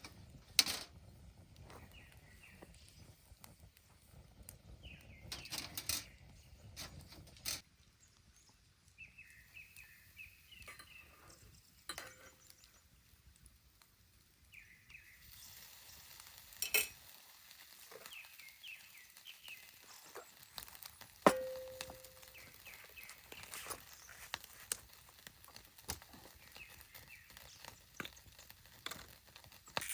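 Scattered clinks and knocks of camp cookware and utensils being handled, with one sharp ringing clink about two-thirds of the way through. Small birds chirp now and then in the background.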